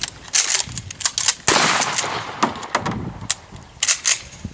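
12-gauge pump-action shotguns being loaded and fired in quick succession: a string of sharp cracks and clacks, with the loudest, longest blast about a second and a half in and two more sharp reports near the end.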